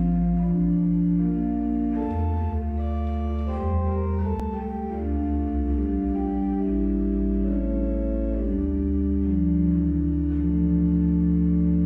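Pipe organ playing the introduction to a hymn: sustained chords with a moving melody over deep pedal bass notes.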